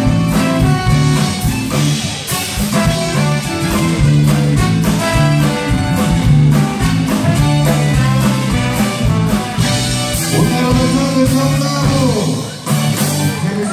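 Live band playing a blues-rock number: trombone, guitar, keyboard and drums, with a man singing. The music dips briefly near the end as a man's voice carries on.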